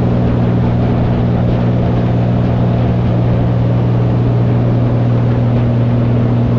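Water taxi's inboard engine running steadily under way: a loud, even, low drone with a steady hiss over it.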